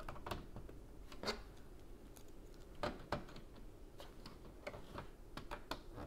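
LEGO pieces being handled and pressed onto a model: irregular small plastic clicks and taps, the loudest about a second in and just before and after three seconds in.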